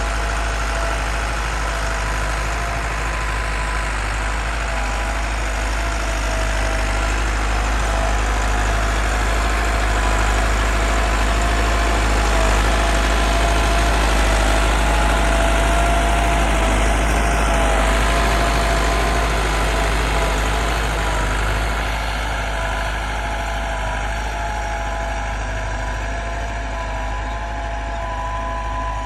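Massey Ferguson 385 tractor's diesel engine running steadily while ploughing, a little louder through the middle stretch.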